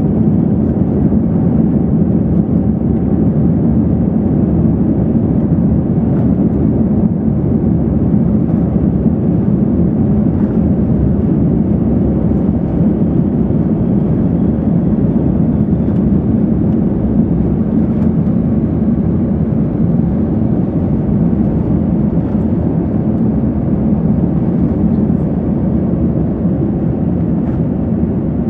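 Steady cabin rumble inside an Airbus A350 taxiing: the engines and the wheels rolling along the taxiway, with no rise in level.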